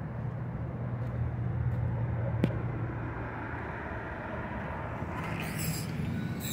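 Steady low rumble of outdoor traffic, with a single sharp click about two and a half seconds in as a glass door is opened. Near the end a brighter hiss comes in on top.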